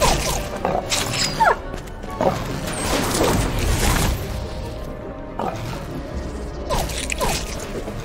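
Action background music with cartoon sound effects of slime guns firing and wet splats.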